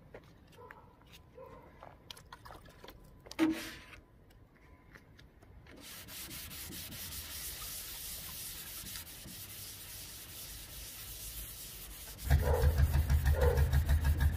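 Wet-and-dry paper on a rubber flatting block rubbing back and forth over primer on a VW T25 van's steel body panel, flatting out the fine scratches. It is faint at first and becomes a steady rasp about six seconds in. Near the end it turns much louder, with a heavy low rumble and strokes about once a second.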